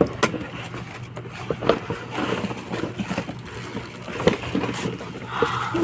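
Handling noise from a package being opened by hand: scattered knocks, scrapes and rustles, irregular and close together, over a steady low hum.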